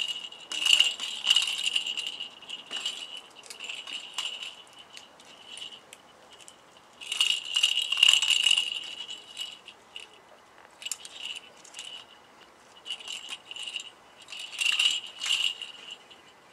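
Tabby cat crunching a mouse's remains, in bursts of rapid crackling bites with short pauses between, the loudest about a second in, around eight seconds and near fifteen seconds.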